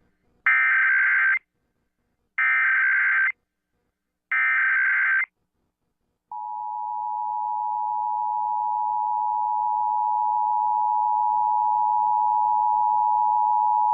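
Emergency Alert System tones for a National Periodic Test: three short bursts of the SAME digital header data, each about a second long. About six seconds in, the steady two-tone EAS attention signal (853 and 960 Hz) begins and holds.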